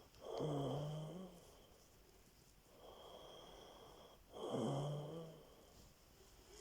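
Snoring: two loud, rasping snores about four seconds apart, with a quieter breath between them.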